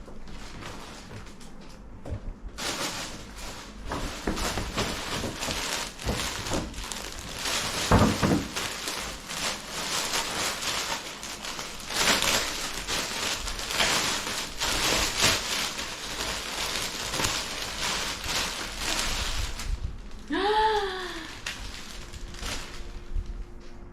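Gift packaging being handled and unwrapped, crinkling and rustling irregularly for most of the stretch, then a short rising-and-falling pitched sound about twenty seconds in.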